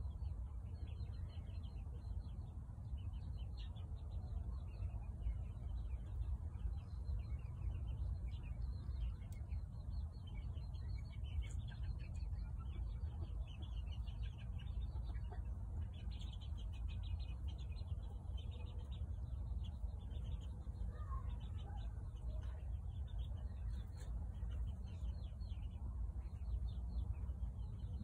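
Small birds chirping and twittering in quick, high runs over a steady low rumble.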